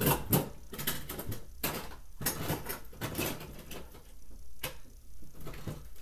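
Irregular clatter and knocking of hard objects being handled and moved about, a dozen or so sharp knocks and clicks, thicker in the first half and with one distinct knock past the middle.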